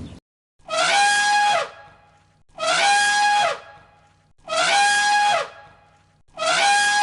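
Peacock calling, a loud trumpet-like wail repeated four times at even two-second intervals, each call about a second long, rising and then falling in pitch.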